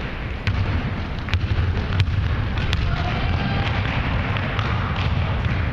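A basketball being dribbled on a hardwood gym floor: a few sharp, unevenly spaced bounces in the first three seconds, over a steady low rumble of gym noise.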